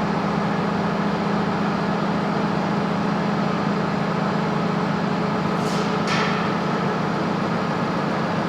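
Steady mechanical hum with a constant low tone, and two brief high hisses about six seconds in.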